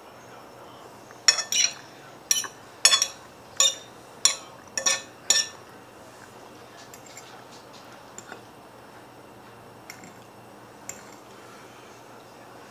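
Eating utensil clinking and scraping against a dish: a quick run of about ten sharp clinks over some four seconds, then a few faint ticks.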